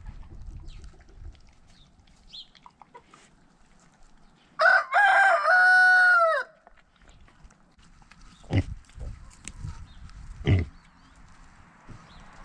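A rooster crows once, a loud call of about two seconds that holds its pitch and drops away at the end. Two dull thumps follow a few seconds later, about two seconds apart.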